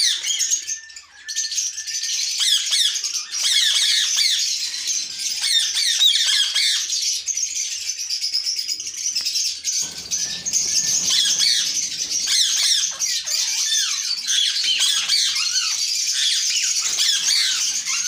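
Dense chorus of many Indian ringneck parakeets screeching and chirping together, so loud the voiceover calls it a lot of noise. About ten seconds in comes a burst of wing flapping as one bird leaves its perch.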